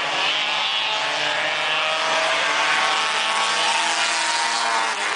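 Engines of several stock cars racing together, a loud steady drone of overlapping engine notes whose pitches shift up and down as the cars accelerate and pass.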